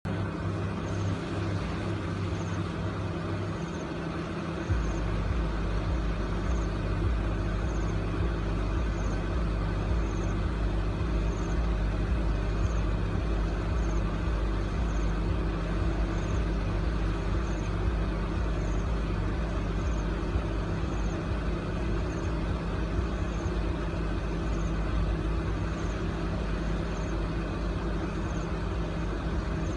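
Steady backing music with sustained tones and a deep bass that comes in about five seconds in, over faint evenly spaced ticks.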